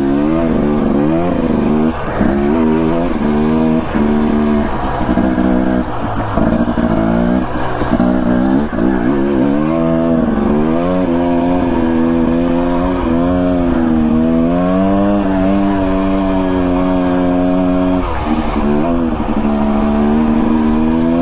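Dirt bike engine running under load on a trail ride, its pitch rising and falling with the throttle and dropping briefly several times as the rider backs off or shifts.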